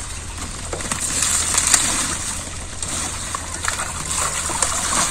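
Water hyacinth plants being pulled and pushed aside in shallow water: leaves crackling and rustling, with some sloshing of water. It is loudest about one to two seconds in.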